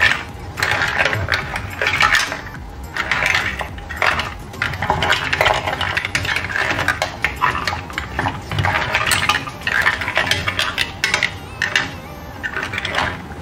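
Green mussel shells clattering and clinking against each other and the sauté pan as they are tossed and stirred with a silicone spatula, in irregular, continuous bursts.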